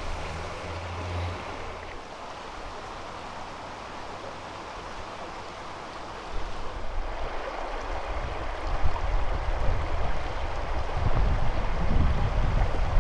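River water flowing over a stony bed, a steady rushing, with wind gusting on the microphone; the low buffeting gets louder about halfway through.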